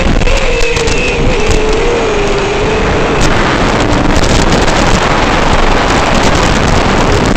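FPV quadcopter's motors and propellers whining, the pitch wavering up and down with throttle, under loud wind rush on the onboard microphone. The motor tone fades about three seconds in, and the wind noise takes over as the drone dives.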